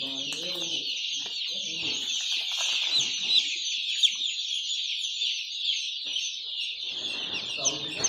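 A flock of hundreds of young chicks peeping together in a constant high-pitched chorus, with a few louder single cheeps standing out around the middle.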